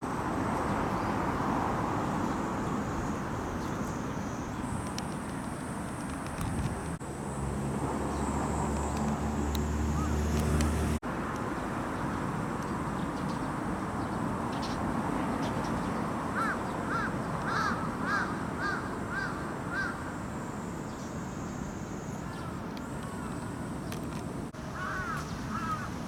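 Steady background hum of distant traffic, with a low engine drone for a few seconds about a quarter of the way in. Past the middle, a bird calls about seven times in quick succession, roughly two calls a second, and calls a few more times near the end.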